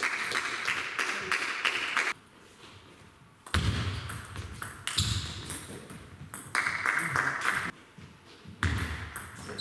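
Table tennis ball being played back and forth in rallies: quick sharp clicks of the ball off the rackets and the table, with a short lull between points about two seconds in.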